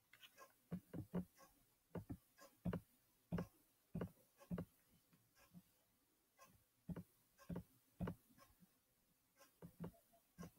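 Irregular sharp plastic clicks and clacks, sometimes two or three in quick succession, with short pauses between groups.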